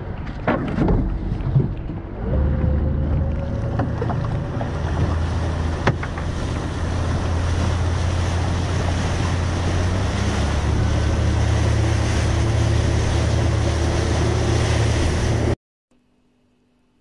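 A few knocks, then a small fishing boat's motor starts up about two seconds in and runs steadily, its hum shifting slightly around ten seconds in, over wind and water noise. The sound cuts off abruptly near the end.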